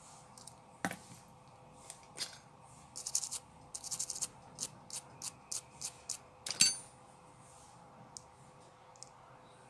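Steel tweezers picking and scraping broken camera lens glass out of the rear camera ring of an iPhone XR, with short toothbrush strokes over the lens: a run of sharp clicks and scratches, the loudest a ringing tick of metal on glass about two-thirds through. A faint steady hum runs underneath.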